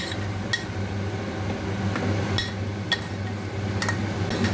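A metal spoon or spatula clinking against a steel pan and a stainless steel plate as cooked food is scraped out onto the plate. About six sharp, briefly ringing clinks are spaced irregularly through the few seconds.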